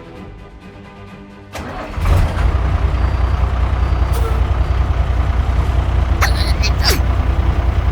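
Background music, then about a second and a half in a click, and from about two seconds a loud, steady low vehicle-engine rumble, with a couple of short high squeals near the end.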